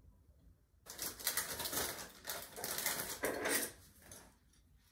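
Plastic packaging being handled: irregular rustling and crinkling that starts about a second in and dies away near the end.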